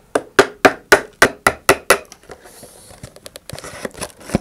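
Small hammer striking the handle of a screwdriver driven into a model rocket's paper motor mount tube, about eight quick blows at roughly four a second, pounding to break the glue joint of the engine block. Then lighter scattered clicks and clatter, with one sharper click near the end.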